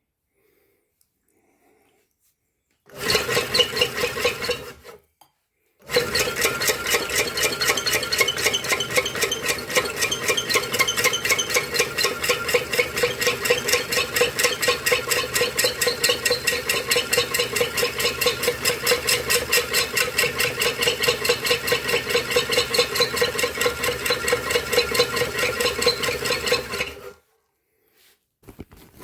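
Homemade potter's wheel running: a washing machine motor drives a wooden pulley and a cut-down pickle-tin wheel through elastic bands, with a fast, even rhythmic rattle and hum. It runs briefly about three seconds in, stops, then starts again and runs steadily until near the end.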